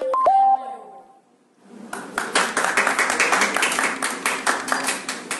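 A group of people clapping in applause, starting about two seconds in and cutting off suddenly near the end. It is preceded by a brief pitched sound with a few sharp clicks.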